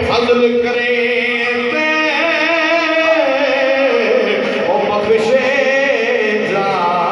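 A man singing solo into a microphone, unaccompanied, in long wavering held notes that glide up and down.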